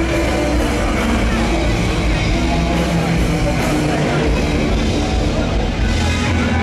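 Loud rock music with singing, played over a big sound system, steady throughout.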